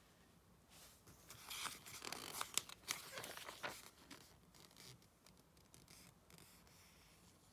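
Glossy magazine pages being turned by hand: a run of paper rustling and crinkling that starts about a second in and lasts a few seconds.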